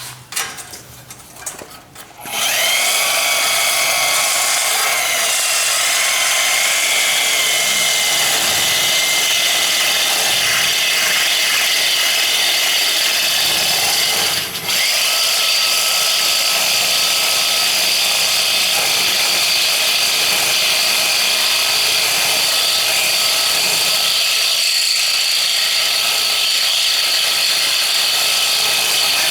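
Power cutting tool running steadily with a high whine as it cuts through a metal chassis bracket. It starts about two seconds in and drops out briefly near the middle.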